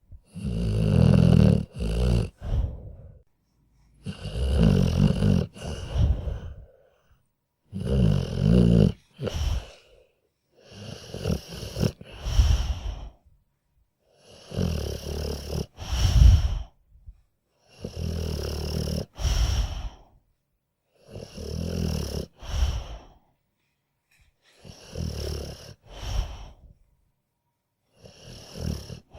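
Sleeping dog snoring in a steady rhythm, about one low, fluttering snore every three and a half seconds, each broken into two parts by a brief pause. The first few snores are the loudest.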